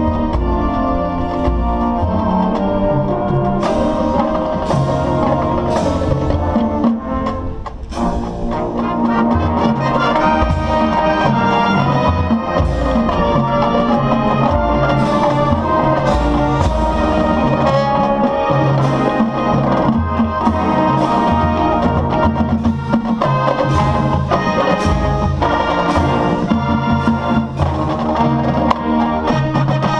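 Marching band brass and percussion playing loud, sustained chords over steady drum hits, easing off briefly about seven seconds in and then building again.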